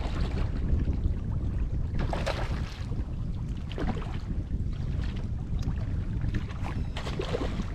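Wind buffeting the microphone: a steady low rumble, with a few faint brief sounds above it.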